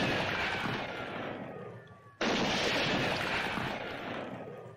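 Two gunshots, each with a long echoing tail that dies away over about two seconds: the first is already fading, the second goes off about two seconds in. A thin falling whine trails each shot.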